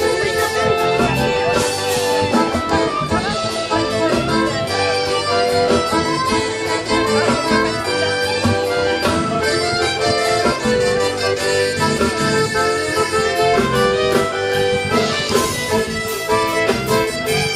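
Live folk band playing a Breton dance tune: accordion and fiddle carrying the melody over guitar, at a steady dance pulse.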